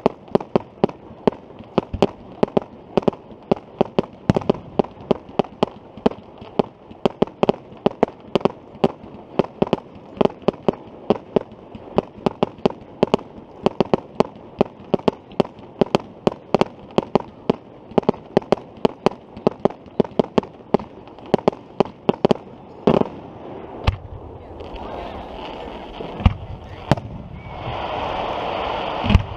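Fireworks barrage firing small shells in rapid succession: a string of sharp pops, about three a second. About 23 s in it gives way to a few louder, widely spaced bangs, and a steadier noise builds up near the end.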